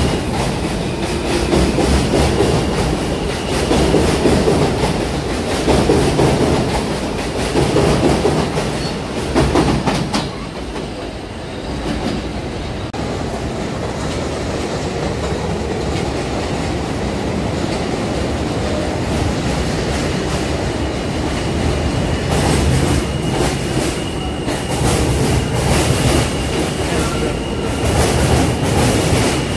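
New York City subway trains passing at speed along a platform, wheels clacking rapidly over rail joints under a heavy rumble, with a thin high-pitched whine. The noise eases to a steadier, quieter rumble for several seconds midway, then swells again with clacking as another train goes by.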